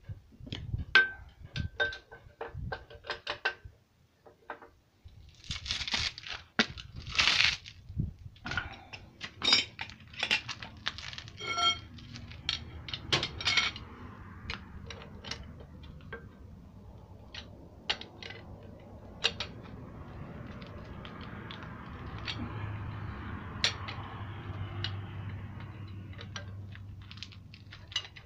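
Metal hand tools clinking and knocking against the engine: a socket on a long bar being fitted to the flywheel bolts of a Peugeot 504 diesel engine, with a few short metallic rings early on and irregular sharp clicks throughout. A low steady hum comes in during the second half.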